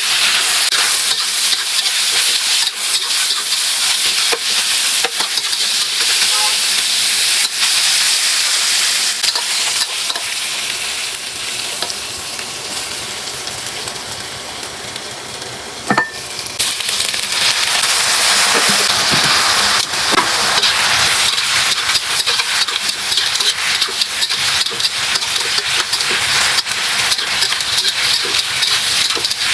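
Food frying and being stirred in a hot pan: a loud, steady sizzle full of small crackles. It dies down for a few seconds past the middle, a sharp clack sounds, then the sizzle comes back loud.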